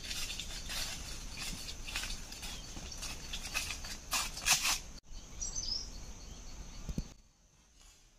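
Footsteps crunching and rustling through dry leaf litter and brush, irregular and loudest about four and a half seconds in, then a brief bird chirp over a steady high hiss; it all drops away sharply near the end.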